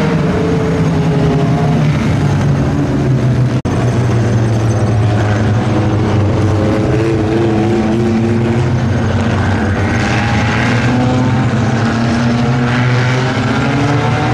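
Several four-cylinder compact-class race cars running flat out together, their engines overlapping and rising and falling in pitch as they pass and lift for the turns. A brief dropout about three and a half seconds in.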